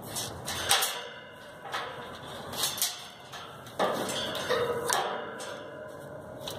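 Metal clinks and rattles from hand tools and the disconnected motor wire leads knocking against the sheet-metal top and fan grille of an outdoor condenser unit. There are about six separate clinks, spread out at irregular intervals.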